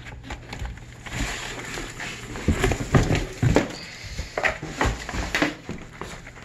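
A rubber snowmobile track being pulled out of its cardboard box by hand: scraping and rustling of cardboard with irregular knocks and thumps, clustered from about two and a half seconds in.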